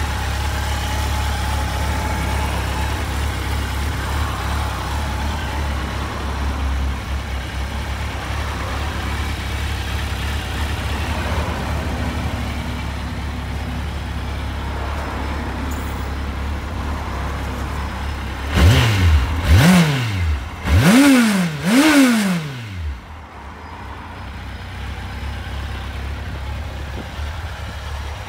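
Kawasaki Z750's inline-four engine idling steadily, then revved three times in quick succession, each blip rising and falling sharply in pitch, after which the engine sound drops away.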